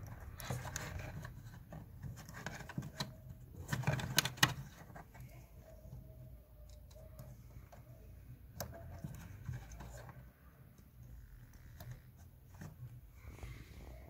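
Small clicks, taps and rustles of hands handling wires and a plastic light fitting under the bottom edge of a car door, with a louder cluster of clicks about four seconds in, over a low steady hum.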